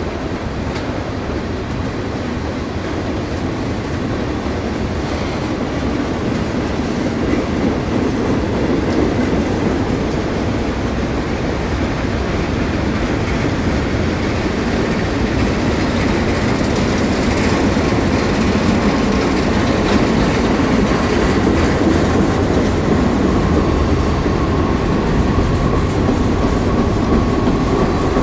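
Freight train cars rolling past at steady speed: a continuous rumble of steel wheels on the rails, with clicking over the rail joints. A thin steady squeal, typical of wheel flanges on a curve, comes in about halfway through and grows a little toward the end.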